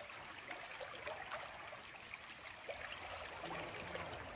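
Shallow creek water rippling and babbling over a stony riffle, faint and steady.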